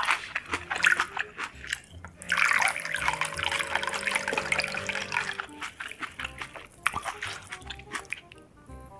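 Close-miked wet eating sounds: short smacking and crunching clicks, with a dense wet hiss lasting about three seconds in the middle, over quiet background music.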